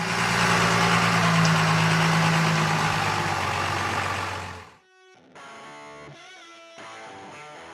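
Cummins six-cylinder turbo diesel engine of an aircraft tow tractor running at a steady idle, loud and rough, cutting off abruptly after about four and a half seconds; quieter guitar music follows.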